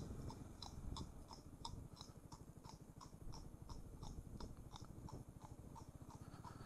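Yamaha Xmax 300's single-cylinder engine running at low speed, a low rumble, with a regular light clicking about three times a second over it.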